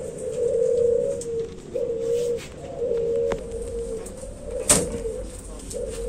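Puter pelung doves (ringneck doves) cooing in their breeding cages: long, low, drawn-out coos one after another, several birds overlapping. A sharp click sounds about three-quarters of the way through.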